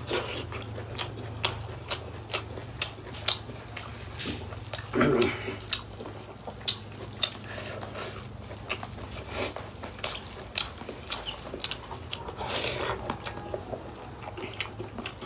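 Close-up mouth sounds of a person chewing pork and rice: irregular sharp clicks and wet smacks, several a second, over a steady low hum.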